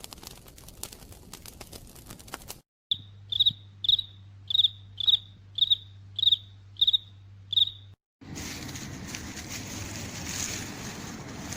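Three short nature sound clips cut one after another. First a fire crackling, then a cricket chirping eight times at a steady pace, each chirp a short high trill. Last, a steady rustling hiss of leaves.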